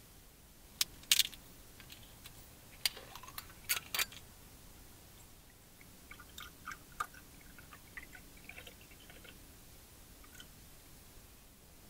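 A few sharp clicks in the first four seconds, then sake poured from a glass bottle into a small stemmed glass. The pour gives soft glugs and splashes from about six seconds in.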